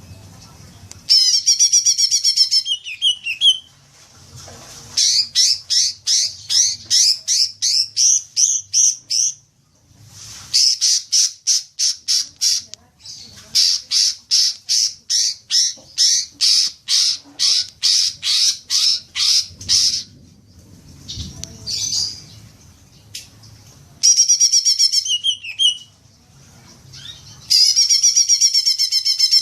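Cucak ijo (green leafbird) song: loud warbled phrases alternating with long runs of rapid, evenly repeated sharp chattering notes, the long 'ngekek' chatter.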